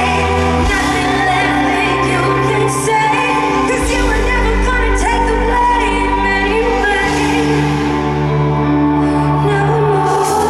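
A woman singing a pop ballad live, with accompaniment of deep sustained notes that change every three seconds or so.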